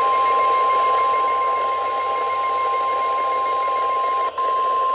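NOAA Weather Radio 1050 Hz warning alarm tone, one steady high tone over radio static hiss, signalling that a warning broadcast is about to follow. It drops out briefly a little past four seconds in.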